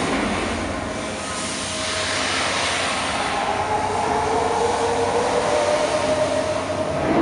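Electronic soundscape: a swelling rush of noise with a slowly gliding tone running beneath it, changing abruptly at the very end.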